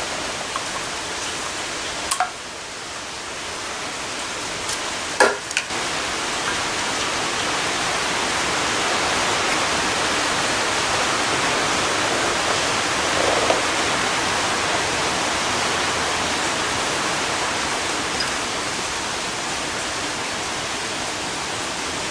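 A steady rushing noise, slightly louder in the middle, with a few sharp clicks and knocks about two and five seconds in.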